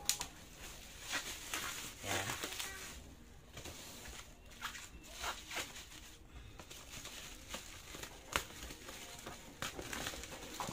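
Scissors cutting through plastic wrap, bubble wrap and packing tape around a box, with the plastic crinkling and rustling in irregular bursts and sharp snips.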